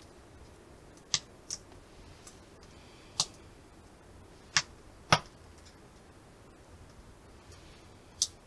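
Small fire of wood shavings and curls, lit on a fire-starting pad, crackling: about six sharp pops, spread irregularly.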